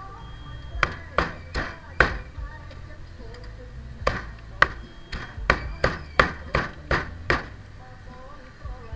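Meat cleaver chopping grilled chicken on a round chopping block: sharp chops, four in quick succession in the first two seconds, then a run of about nine more from about four seconds in. Faint background music plays throughout.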